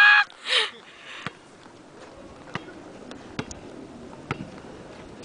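A short whooping shout at the start as the layup goes up, with a second, fainter call just after; then a basketball bouncing on the asphalt court, several sharp thuds at uneven spacing.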